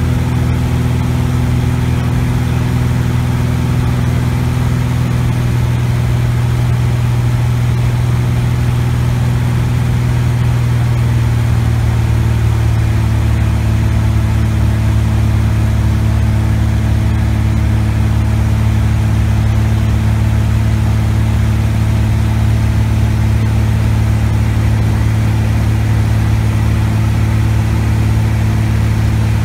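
Cessna 180's Continental O-470 six-cylinder engine and propeller droning steadily, heard inside the cabin in flight. About eleven to thirteen seconds in the pitch drops slightly and settles as the power is set back on the throttle and propeller controls.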